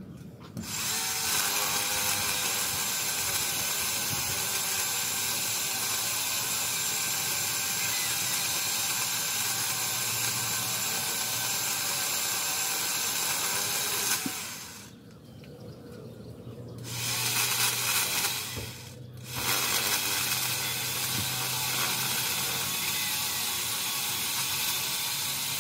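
Worx WG368E 40V cordless electric chainsaw running with a steady high whir as it cuts into a tree trunk. It starts about half a second in, stops for a couple of seconds about 14 seconds in, runs again, pauses briefly, and then runs on.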